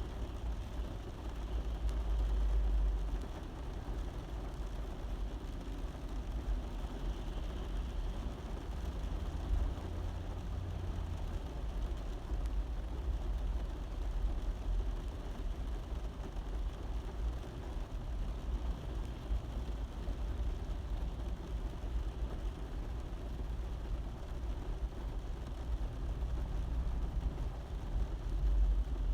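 Rain falling on a car's roof, a steady low rumble with a faint hiss above it.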